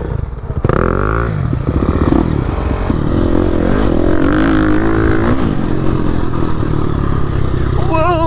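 KTM 350 EXC-F's single-cylinder four-stroke engine revving up and down as the dirt bike is ridden along a rough trail, with clattering from the bike. Near the end the engine settles into a held, wavering note.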